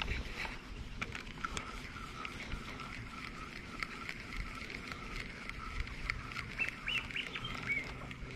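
Spinning reel being wound in on a lure retrieve: a rhythmic whirring that rises and falls with each turn of the handle, with light clicks.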